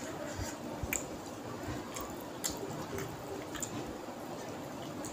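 Fingers mixing and mashing rice with curry on a plate: soft wet squishing with a handful of short sharp clicks.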